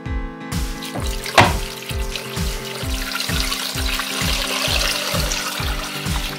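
Electronic music with a steady, fast kick-drum beat and held synth tones, overlaid with a rushing, water-like noise. A sharp hit comes about a second and a half in.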